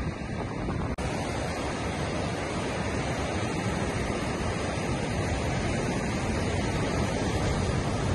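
Ocean surf breaking and washing up a sandy beach: a steady rush of noise that cuts out for an instant about a second in.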